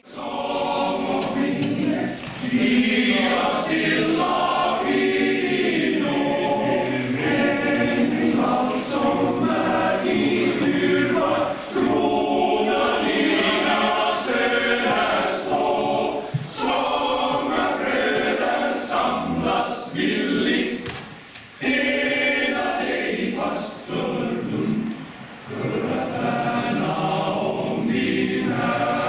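Male choir singing, with short breaks between phrases about two-thirds of the way through.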